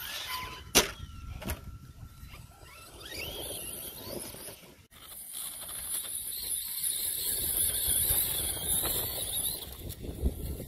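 Brushless electric motor of an ARRMA Outcast 4S RC stunt truck whining and rising in pitch as it accelerates, with a few sharp knocks in the first two seconds. In the second half comes a louder steady hiss of the truck's tyres tearing through grass and dirt.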